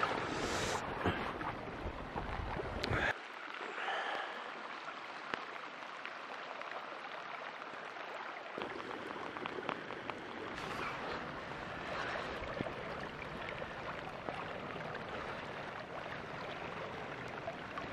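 Steady rush of running creek water, with a few small ticks and splashes. The sound turns thinner and hissier about three seconds in, then fills out again a little before halfway.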